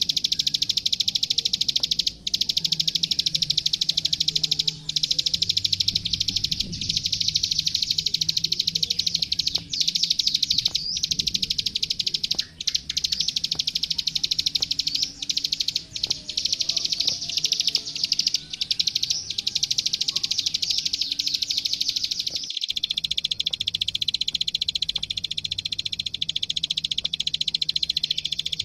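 Plain prinia (klik-klik, ciblek sawah) song: a continuous, very rapid high-pitched clicking trill with only brief breaks, from a recording meant for training young birds.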